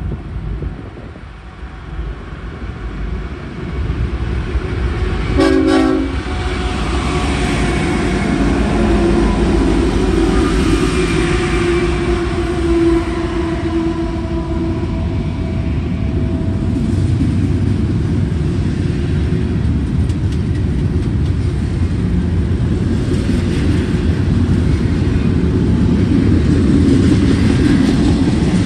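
Long double-stack freight train passing close by, led by BNSF diesel locomotives. The rumble builds as the locomotives approach, and a brief horn sounds about five or six seconds in. The engines go by, then the loaded double-stack well cars roll past with steady wheel-on-rail noise.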